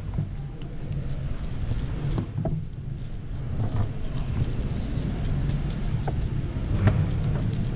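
Large-hall ambience: a steady low rumble with background murmur, and a few scattered clicks from a MoYu AoShi WR M 6x6 speedcube being turned during a solve.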